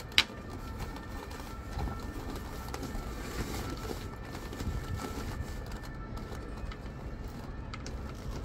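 A sharp click just after the start, then the handling of a boat's canvas cockpit-enclosure panel with a clear vinyl window as it is fitted and fastened in place, over a steady low rumble.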